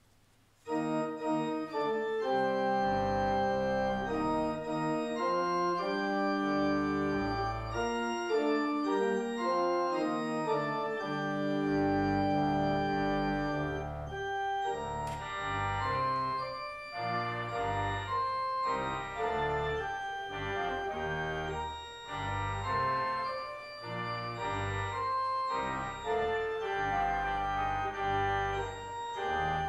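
Church organ starting a postlude about a second in, playing sustained chords over deep bass notes.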